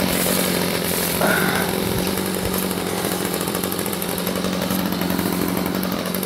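Two-stroke chainsaw engine running steadily at one even pitch without revving. A brief louder, higher sound comes about a second in.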